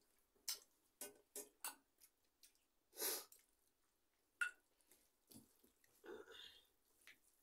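Quiet eating sounds of rice and dal eaten by hand: a series of short chewing, smacking and squishing sounds, with a longer one about three seconds in and a sharp click about halfway through.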